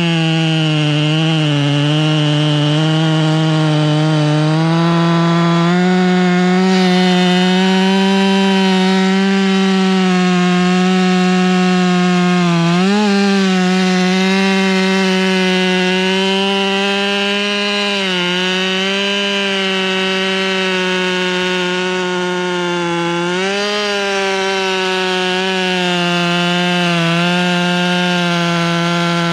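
Husqvarna 572XP two-stroke chainsaw held at full throttle, its chain cutting deep through a thick beech log. The engine note holds steady under load, wavering briefly a few times as the chain bites harder and the saw recovers.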